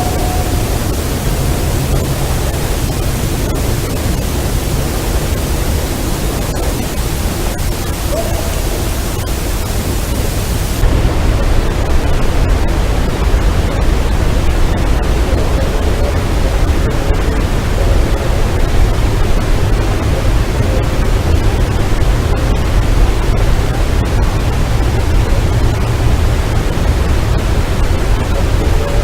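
Loud steady hiss with a deep rumble underneath, from a heavily amplified outdoor recording. A faint, brief rising tone shows about eight seconds in, and the top of the hiss drops away abruptly about eleven seconds in.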